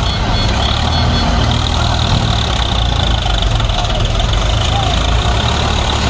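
Diesel engines of a JCB 3DX backhoe loader and a tractor running steadily under work, a deep continuous drone. A fast repeating high beep fades out about a second in.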